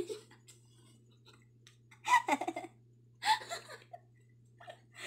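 Two young women laughing and giggling in two short bursts, about two seconds in and again a second later, over a faint steady low hum.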